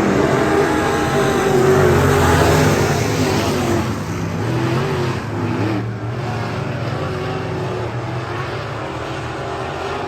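Race car engines running hard on the track, their pitch rising and falling with the throttle. Loudest in the first few seconds, then a little quieter.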